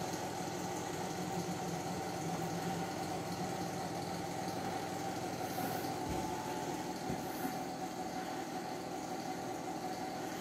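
Steady mechanical hum with a faint, constant high tone running through it.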